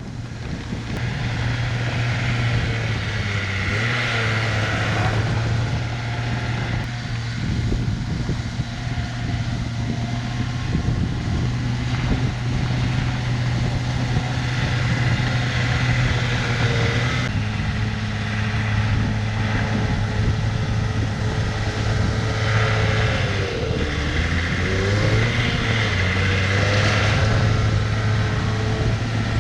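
Diesel engine of a tracked earthmoving machine running steadily under load while spreading gravel, its pitch dipping and recovering briefly about three-quarters of the way through.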